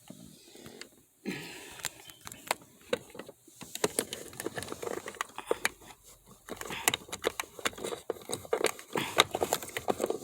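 Hands handling small plastic parts around a car's gear shifter, making irregular light clicks, taps and rustling.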